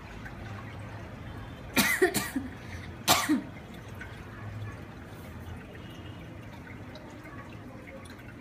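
A person coughing in two short bouts, about two and three seconds in, over a low steady hum.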